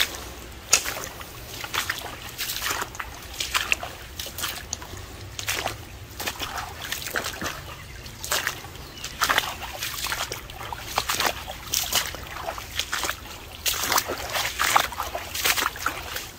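Footsteps wading through shallow creek water, sloshing and splashing irregularly about once a second.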